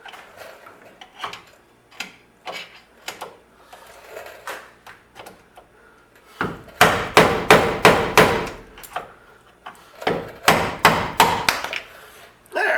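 Hammer blows on the VW trailing arm, knocking a part out after its seal and C-clip have been removed. Light taps at first, then two loud runs of rapid strikes about three a second, the first starting about six and a half seconds in and the second about ten seconds in.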